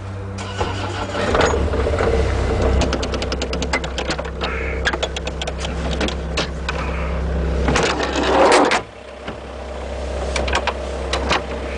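Bobcat mini excavator's diesel engine idling steadily, with a run of sharp clicks and rattles over it and a louder burst of noise about eight seconds in.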